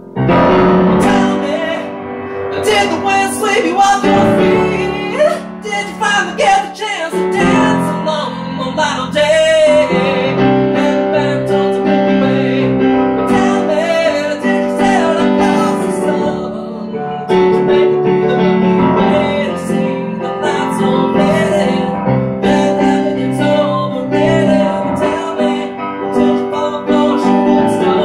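A man singing while accompanying himself on a grand piano, with held chords under the vocal line.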